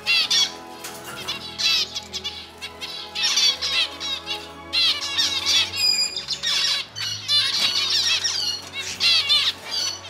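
Zebra finches calling and singing in repeated bursts of quick, high chirping notes, with short gaps between bursts, over background music.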